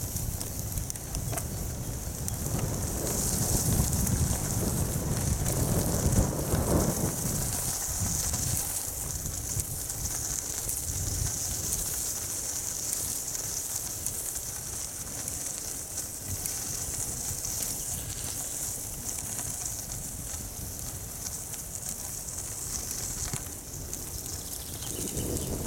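Bicycle tyres rolling and crackling over a gravel road, with wind buffeting the microphone; the wind rumble swells for several seconds near the start.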